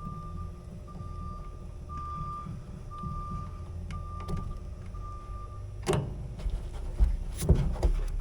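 A high electronic beep repeating about once a second over a low steady hum; the beeping stops about six seconds in, and a run of sharp clicks and knocks from handled metal tools and parts follows.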